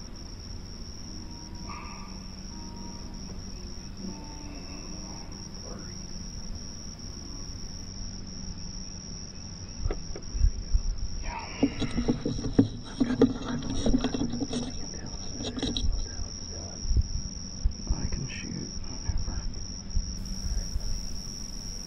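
Insects in the field behind a steady high-pitched drone. About ten seconds in, a few seconds of knocks and low sounds join it.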